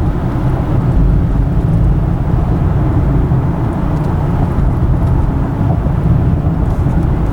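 A car on the move, heard from inside: a steady low rumble of road and engine noise.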